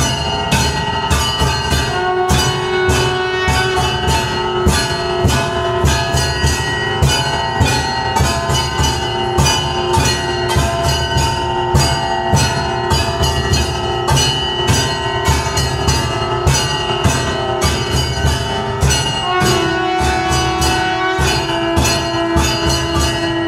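Hanging temple bell rung by its rope over and over during aarti, its clapper striking about four times a second so the ringing never dies away, over a steady low thudding beat.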